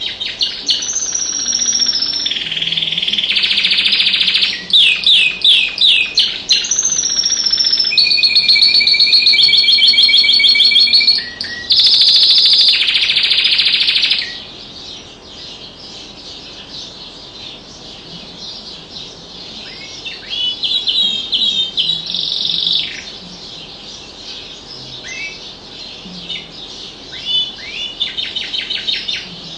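Domestic canary singing: a long, loud song of rapid trills, rolls and whistled glides for about the first fourteen seconds. Then quieter, scattered chirps and short trills.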